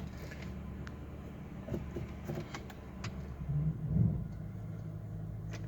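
2003 Ford Crown Victoria Police Interceptor's 4.6-litre V8 idling steadily just after a cold start, with a few light clicks and a brief louder swell about four seconds in.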